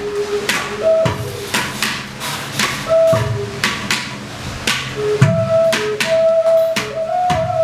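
A small flute plays a slow line of long held notes, with hand strikes on clay pot drums beneath it: sharp slaps, some with a low thump.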